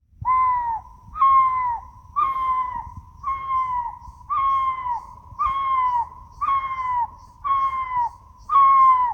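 A bird calling one clear whistled note over and over, about once a second, each note dipping slightly in pitch at its end.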